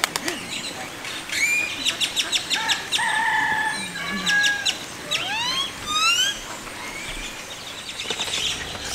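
A flock of flamingos calling: short honking notes mixed with rapid clicking chatter, and a run of quick rising squeals about five to six seconds in.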